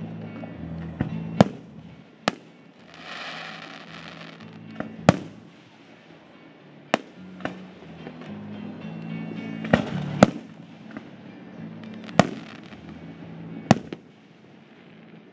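Aerial fireworks shells bursting: about eight sharp bangs a second or two apart, with smaller pops between them and a hissing rush for a second or so near the start. Music plays underneath throughout.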